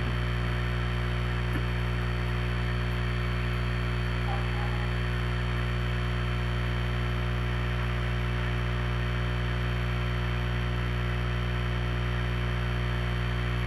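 Steady low electrical hum with a stack of evenly spaced overtones, unchanging throughout.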